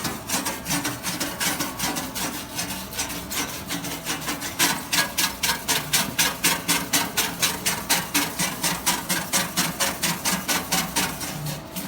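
Automatic welding rig running a weld with a steady rhythmic rasping, about five pulses a second.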